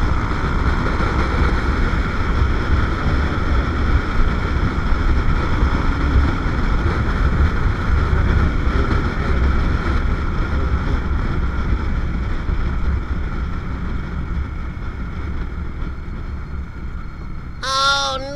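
Suzuki Raider R150 Fi's single-cylinder four-stroke engine running at highway speed, under heavy wind rush on the camera. The sound eases off over the last several seconds as the bike slows. A short horn beep comes at the very end.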